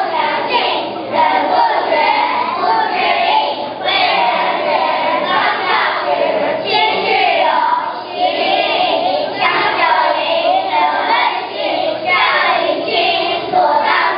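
A group of kindergarten children singing together in chorus, phrase after phrase with short breaths between.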